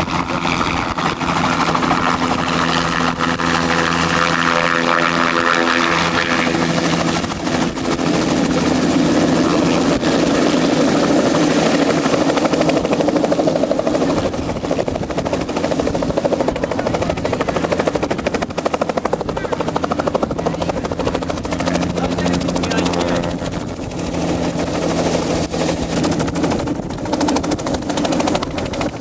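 A helicopter running close by, loud and steady, its rotor beating in a rapid chop over the engine's whine.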